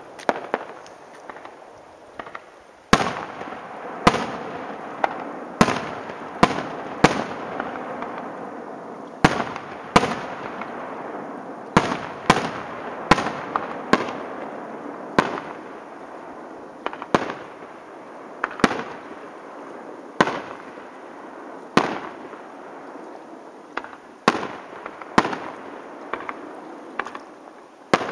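Fireworks display: about twenty sharp bangs of aerial shells bursting at irregular intervals, one to two seconds apart. A continuous rushing, crackling noise runs between the bangs and is thickest in the first half.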